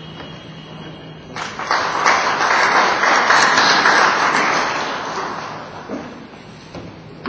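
Audience applauding: the clapping breaks out about a second and a half in, swells, then dies away by about six seconds, over a faint low hum.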